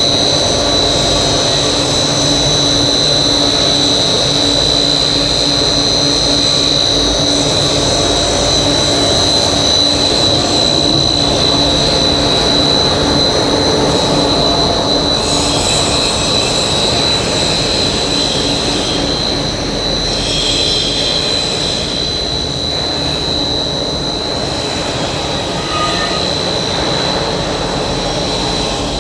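High-speed blown film extrusion machine running steadily: a continuous rushing of its air-ring blower and drive motors with a steady high whine over it, a little quieter in the second half.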